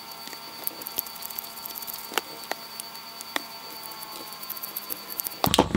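Small, irregular clicks and ticks as a freshly lubricated rotary potentiometer is handled and its shaft is turned back and forth by hand to work the lube in, with a louder clatter of knocks near the end.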